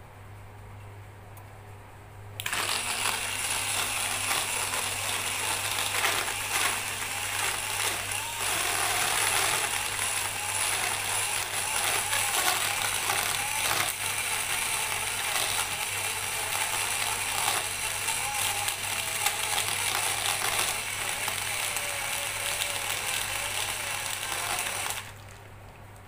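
EMD portable USB rechargeable blender running, its small motor whirring while the blades smash ice cubes, which clatter and rattle against the jar. It switches on about two seconds in and cuts off abruptly shortly before the end, about 22 seconds later.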